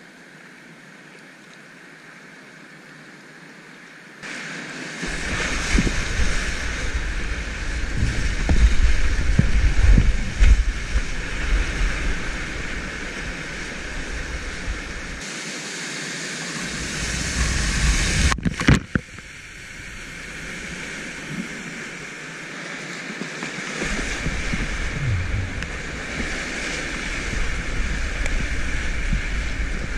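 High-water whitewater rushing past a kayak, with waves slapping and breaking against the boat. The rush is fairly quiet for the first few seconds, then gets much louder as the boat drops into the rapid, with irregular deep thumps of water and a brief sharp break about two-thirds of the way through.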